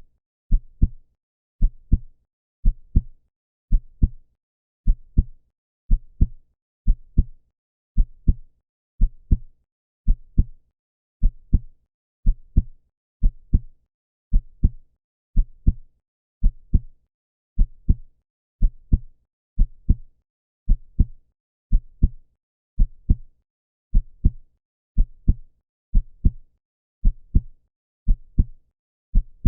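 Heartbeat: a steady double thump, a strong beat followed closely by a softer one, about once a second.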